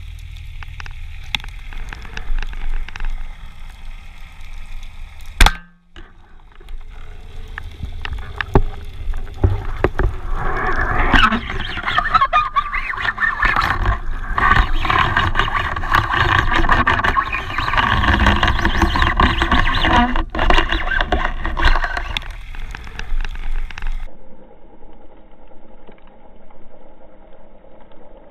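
Underwater sound picked up through an action camera's housing: a steady crackle and rush of water, with a sharp knock about five seconds in and a louder, denser stretch of crackling water noise in the middle. Near the end it drops abruptly to a quieter low hum.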